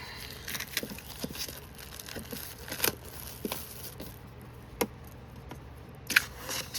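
Small items and their packaging being handled on a table: scattered light clicks, taps and crinkling, with a louder clatter of clicks about six seconds in.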